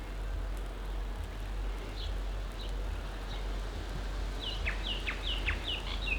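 Sausages sizzling steadily on a tiny camp cooker, with a bird calling over it. A few faint chirps come first, then from about four seconds in a quick run of short, falling notes, several a second.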